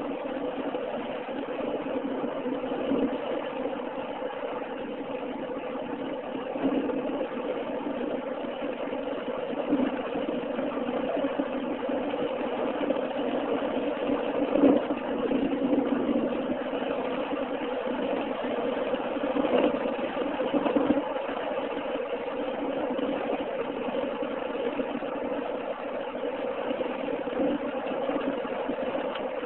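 Steady engine and road noise heard from inside a car's cabin as it cruises along a highway, a low even hum with small swells now and then.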